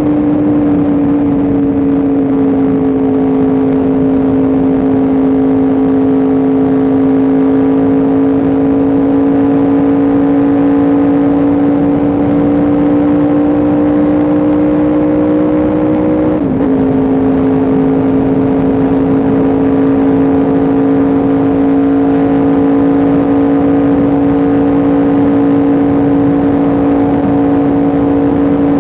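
Yamaha R1M's crossplane inline-four engine running steadily under way, its pitch holding and slowly creeping up. About halfway through, the engine note briefly breaks and settles slightly lower, like a quick gear change.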